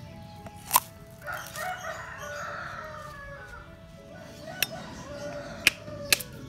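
A rooster crows from about a second in, lasting roughly two seconds, over soft background music. Several sharp knocks cut through, the loudest just under a second in and three more in the second half.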